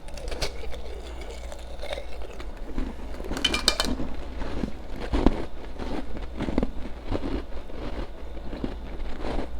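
Ice being bitten and chewed close to the microphone: an irregular run of crunches and crackles, with a dense cluster of sharp cracks about three and a half seconds in.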